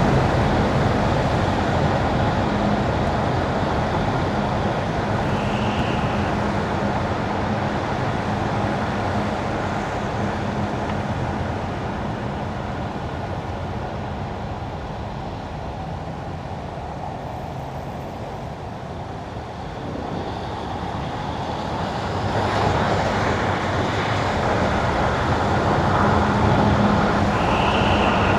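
A car driving on wet winter asphalt: steady tyre hiss and road noise with a low hum, easing off towards the middle and building again about two-thirds of the way in.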